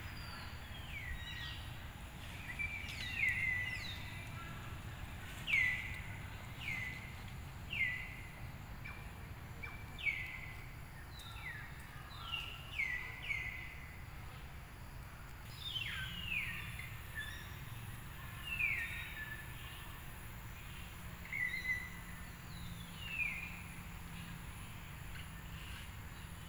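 A bird calling over and over with short whistles that slide downward, coming at irregular intervals over a steady low background noise.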